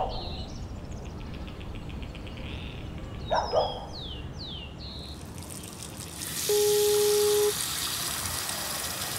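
A telephone ringback tone: one steady beep about a second long, starting about six and a half seconds in, with the outgoing call still ringing unanswered. It sits over the steady hiss of a running tap, and a few quick falling chirps come a little before it.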